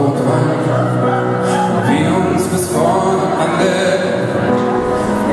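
Live pop-rock song: a man singing lead over electric guitar and a band, with a gospel choir behind.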